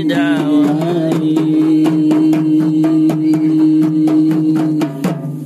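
Shalawat devotional song sung with rebana frame drums struck in a steady rhythm. The voices ornament the melody at first, then hold one long note, and the song and drums stop together about five seconds in.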